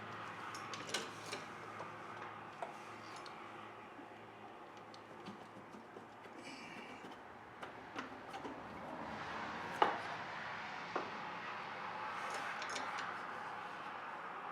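Scattered light metallic clicks and clinks of engine parts being handled by hand during a teardown, with one sharper clink about ten seconds in.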